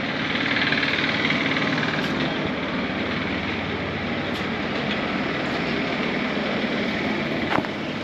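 Steady engine noise of a nearby vehicle. It swells in the first second, then holds, with a sharp click near the end.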